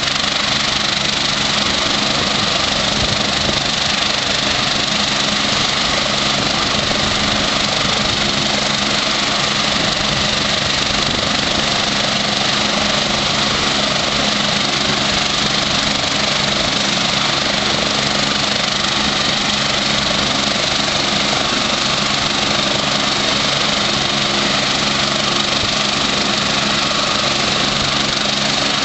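Twin-turbine BK-117 helicopter running on the ground with its main rotor turning. It makes a steady high turbine whine over a low hum, with no change in pitch or level.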